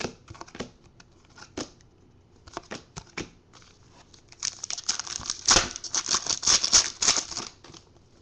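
Trading cards being handled, with a few light clicks and slides. From about four and a half seconds in comes roughly three seconds of crinkling and tearing of a foil card-pack wrapper.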